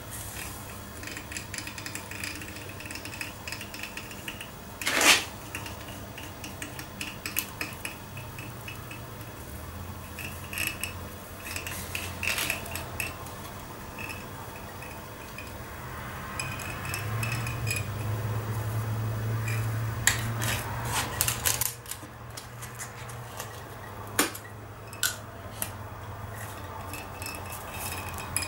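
Handheld hot wire cutter being run along a wooden template through a foam block: scattered clicks, taps and light scraping, the loudest tap about five seconds in. A low steady hum comes in about ten seconds in and fades near the end.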